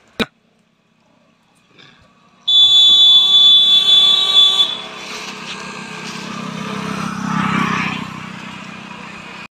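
A short sharp click, then a vehicle horn sounds loudly and steadily for about two seconds. The engine and tyre noise of a vehicle passing on the road follows, swelling and easing off near the end.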